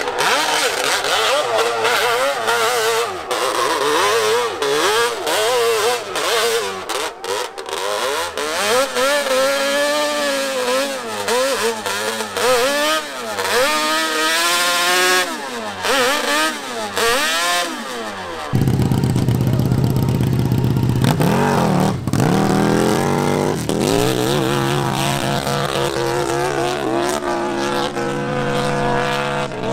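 Hill-climb motorcycle engines revving hard, the pitch rising and falling again and again as the throttle is worked. About two-thirds of the way through, the sound changes suddenly to a deeper, fuller engine note.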